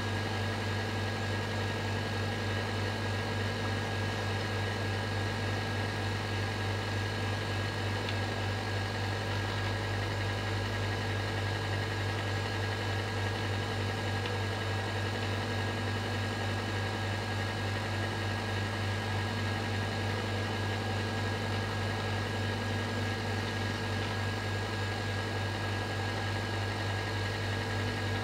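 A steady low droning hum with a thin high tone held above it, unchanging throughout.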